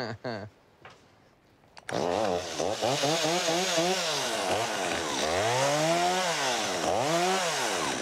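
Gas chainsaw starting up suddenly about two seconds in, then revved up and down over and over, about once a second, as it is run into leafy bushes to cut them down.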